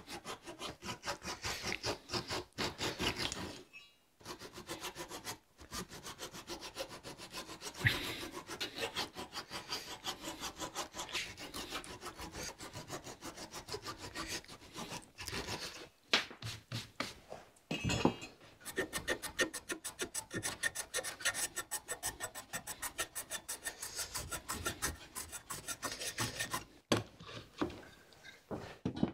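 Japanese-style flush-cut saw, cutting on the pull stroke, trimming protruding wooden mitre reinforcements flush with the board's face: rapid short saw strokes through wood, broken by a few brief pauses.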